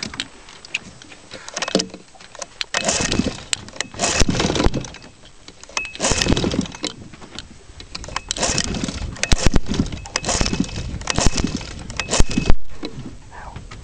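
1974 Johnson 6 hp twin-cylinder two-stroke outboard being pull-started by hand: about eight hard pulls of the recoil rope, one every second or two, each turning the engine over in a short burst, with no steady running between pulls.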